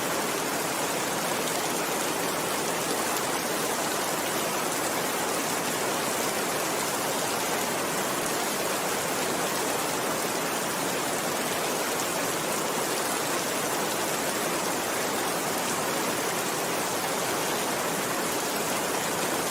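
Steady, heavy rainfall: an even, unbroken hiss with no distinct drops or crackles standing out.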